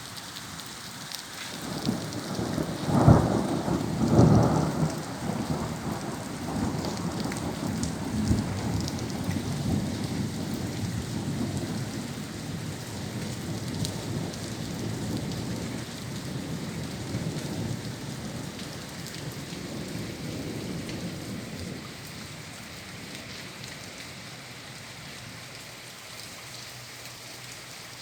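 Heavy rain falling steadily on surfaces. About two seconds in, a thunderclap breaks with two loud cracks, then rumbles on for many seconds before dying away, leaving only the rain.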